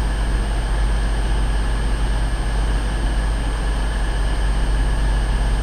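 Diesel train running steadily at the station: a deep, even engine rumble with a few steady whining tones above it.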